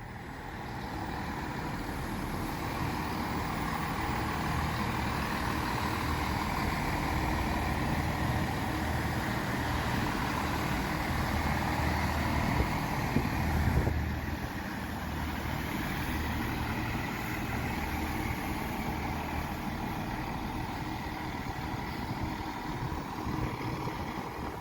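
Diesel engines of a Class 165 diesel multiple unit running steadily at the platform, with a slight drop in level about 14 seconds in.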